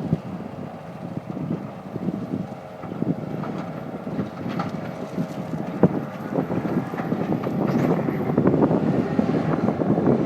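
Cat skid steer's diesel engine running, with scattered sharp crackles and wind buffeting the microphone; it grows louder through the second half.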